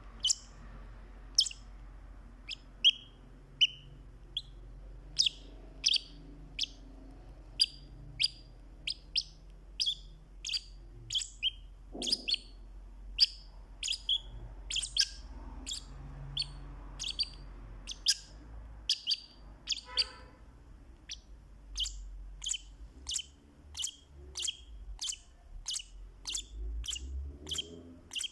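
Fischer's lovebird giving short, sharp, high-pitched chirps, repeated over and over at about one to two a second.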